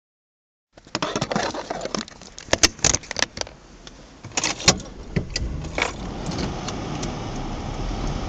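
A run of sharp clicks and knocks starting about a second in, as a phone camera is handled and set in place inside a car, then from about six seconds a steady low car engine hum that slowly grows louder.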